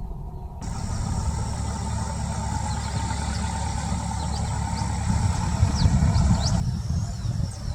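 A steady low rumble with several short, quickly falling high bird chirps over it. The background changes abruptly about half a second in and again near the end.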